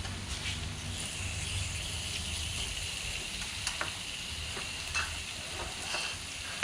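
Meat sizzling on a moo kratha grill pan, a steady hiss with a few light clicks scattered through it.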